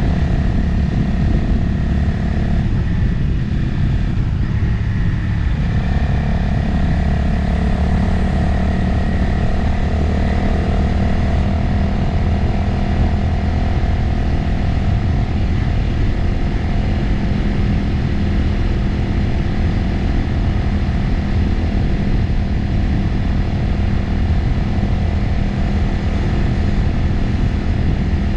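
Motorcycle engine running at a steady cruise, recorded on board with wind rushing over the microphone; the engine note shifts briefly a few seconds in, then holds steady.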